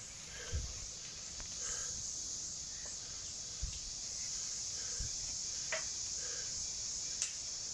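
Steady high-pitched chorus of insects, with a few soft thumps and sharp clicks over it.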